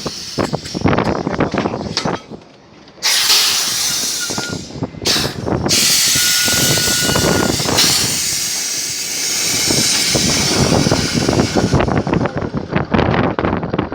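Drilling rig floor machinery working during a drill-pipe pullout: a rough, rattling mechanical clatter, broken by loud bursts of hissing, one about three seconds in and a longer one around six seconds in.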